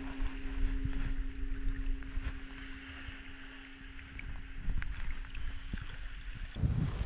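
Shallow sea water lapping and splashing around a person wading out of the sea, with small irregular splashes and a steady low hum underneath. About six and a half seconds in it cuts to heavy wind buffeting the microphone.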